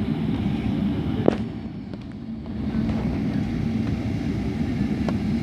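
Airliner cabin noise while taxiing: a steady low rumble with a constant hum, broken by a sharp click about a second in, after which the noise dips briefly before settling back.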